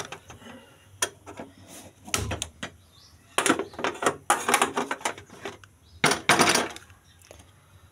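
Knocks, clicks and metal scrapes from handling a gas stove and an aluminium pressure cooker. A low thump comes about two seconds in, then clatter as the burner is lit, and a loud scrape about six seconds in as the cooker is set down on the burner's metal pan supports.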